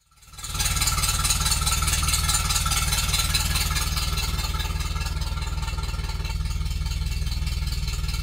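A 1955 Massey Ferguson TEA20 tractor's four-cylinder petrol engine running steadily, with an even low throb and a clattery top.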